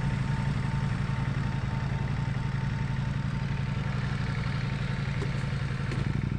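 2022 Ducati Panigale V4's V4 engine idling steadily in neutral with a rapid, even throb.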